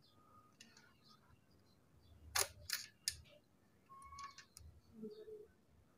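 Mostly quiet, with three sharp clicks a little after two seconds in and a few fainter taps and rustles later: handling noise from hands, tools or the camera.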